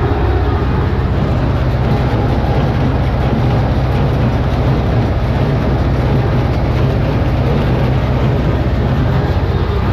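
Tractor diesel engine running steadily under load, together with the working noise of a Sipma Z224 small square baler picking up and pressing hay.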